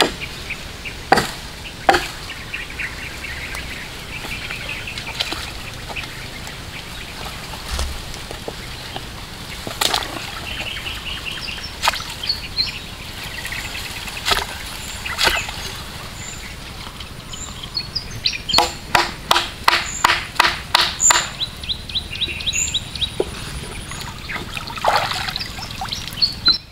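Wooden knocks and water splashes as a long pole is driven into the pond bed and worked against a log raft: single knocks every few seconds, then a fast run of about three knocks a second a little past the middle. Birds chirp in the background.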